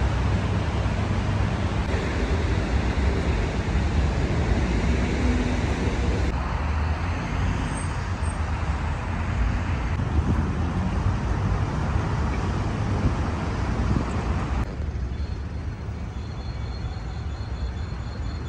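Steady city street traffic noise: a continuous low rumble of passing cars. The background changes abruptly twice, about six and fifteen seconds in.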